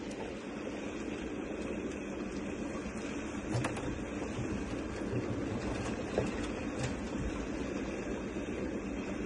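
Steady outdoor noise of wind and water, with a few short knocks and splashes as a landing net of live fish is worked from a net cage into a plastic barrel.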